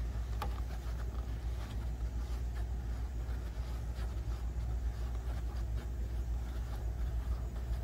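Steady low rumble with faint, scattered light clicks and taps of hand work as rubber bump stops are unscrewed from a car's trunk lid.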